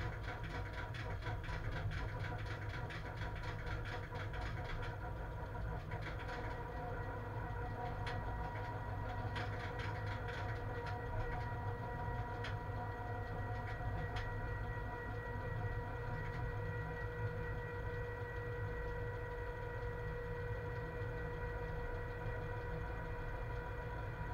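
Cab noise of a ČD Cargo class 130 electric locomotive under way with a heavy freight train of about 1500 tonnes: a steady low rumble with a few even running tones. Sharp clicks and rattles come in the first few seconds and again about halfway through.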